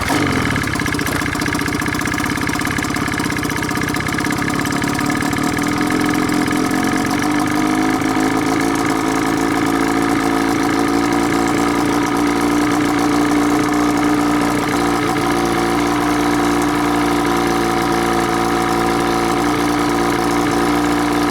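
1991 Evinrude 30 hp two-stroke outboard motor running steadily at low speed, starting abruptly and rising slightly in pitch before settling, with the timing retarded and new reeds fitted.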